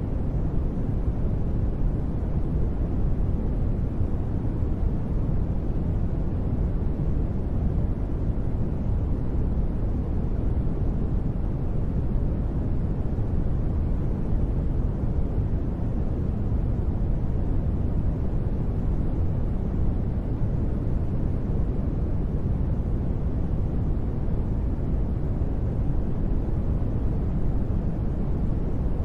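Continuous sleep noise, sold as white noise but deep and rumbling, with most of its weight in the bass and little treble. It stays perfectly steady, with no changes.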